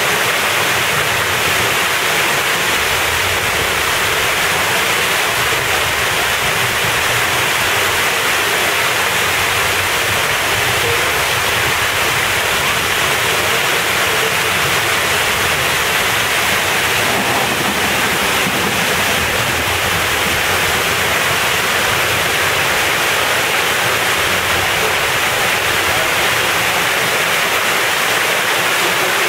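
Steady rushing and splashing of water churning a pond's surface, as from a fountain or inflow pouring into it.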